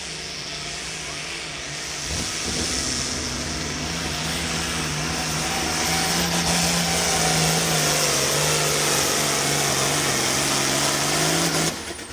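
Pro field class pulling tractor's engine at full throttle under the load of a pull, holding a steady pitch and growing louder, then cutting off suddenly near the end as the run finishes.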